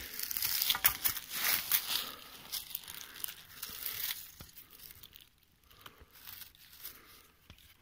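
Dry leaf litter and twigs rustling and crunching as a shed deer antler is lifted from the forest floor by hand. The rustling fades after about four seconds, leaving a few faint ticks.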